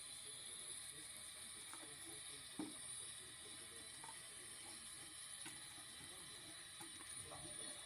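Maytag washing machine running its delicate cycle: faint water sloshing and hissing, with a soft knock about two and a half seconds in.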